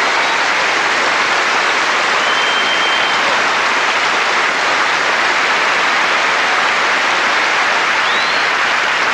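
Large theatre audience applauding, a steady dense clapping throughout, with a couple of brief high whistles.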